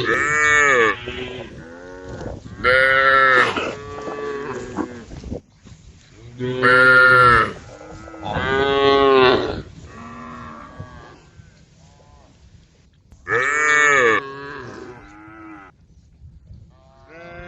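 Cows mooing again and again: about five loud, drawn-out moos with fainter ones in between, each call rising and then falling in pitch.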